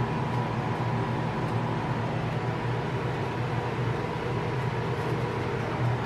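Countertop blender motor running steadily, blending a protein shake with ice.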